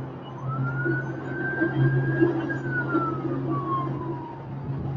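Emergency vehicle siren wailing in the street below: the pitch rises, holds high for about two seconds, then glides down, over a steady low hum.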